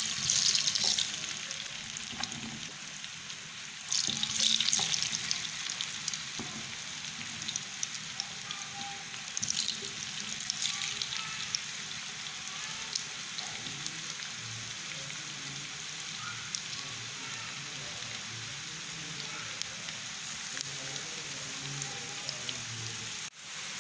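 Besan-coated potato strips sizzling as they shallow-fry in hot oil in a frying pan. The sizzle swells loudly as handfuls are dropped in, right at the start, about four seconds in and again around ten seconds in, then settles into a steady sizzle.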